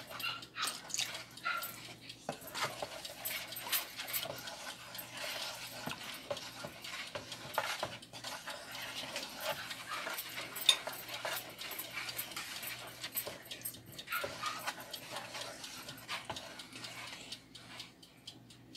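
Wooden spoon stirring a thin, creamy coconut-milk mixture in a plastic bowl: soft, irregular scrapes and taps of the spoon against the bowl, with the liquid swishing.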